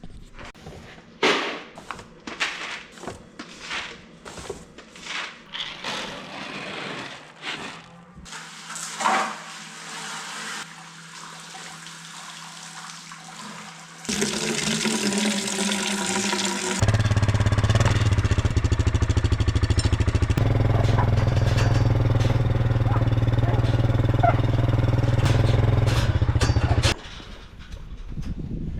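A series of knocks and clatters, then an engine running steadily for about ten seconds before it cuts off near the end.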